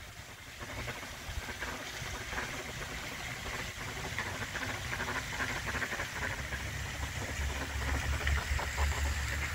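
Ducks feeding in the grass, their pecking making soft scattered clicks, over a steady outdoor hiss and a low rumble that grows stronger near the end.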